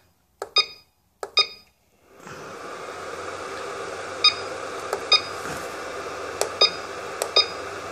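CellPro PowerLab 8 battery charger giving about eight short electronic beeps at irregular intervals as its keys are pressed and it starts a charge cycle. A steady hiss starts about two seconds in and continues under the beeps.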